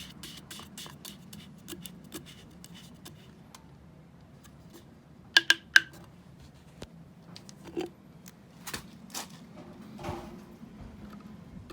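Metal tools and parts being handled during a scooter oil change: a run of light clicks and taps, then three sharp, ringing metallic clinks in quick succession about halfway through, and a few scattered knocks after.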